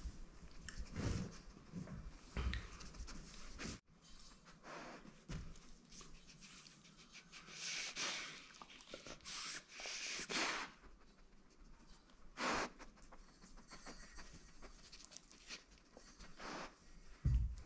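German Shepherd eating from a stainless steel bowl: sniffing, licking and breathing noises in short, irregular bursts.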